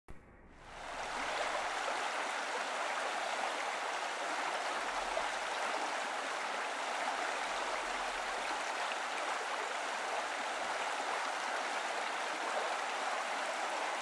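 A small stream of water flowing over rocks, a steady even rush of water that fades in about a second in.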